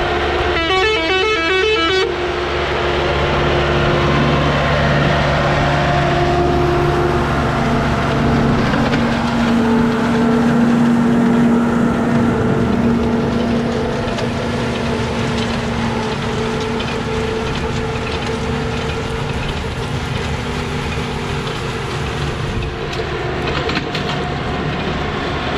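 Başak 2075 tractor's diesel engine running steadily under load while driving an Elibol small square baler through straw, with a steady whine from the driveline. A brief warbling noise sounds in the first two seconds.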